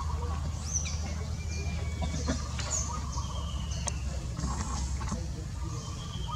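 Birds calling in the trees: scattered short, high chirps and a few falling whistles, over a steady low rumble.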